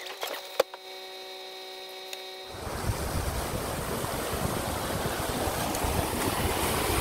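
Land Rover Discovery 3 fording a shallow stream: a steady rush of splashing water around its wheels, mixed with wind on the microphone, growing a little louder as it comes closer. Before that, for the first two and a half seconds, there is a quieter steady hum with one sharp click about half a second in.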